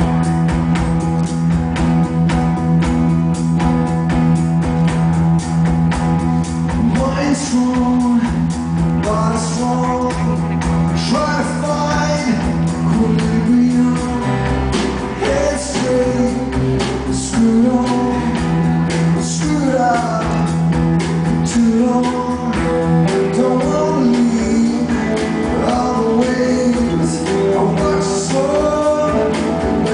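Live rock band playing guitar-driven music, with a male lead vocal coming in about seven seconds in.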